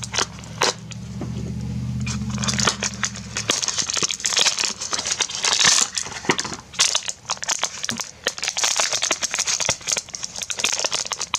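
Packaging being opened by hand: a small cardboard blind box and its plastic wrapping crinkling, crackling and tearing in quick irregular rustles, with a low hum that stops about three seconds in.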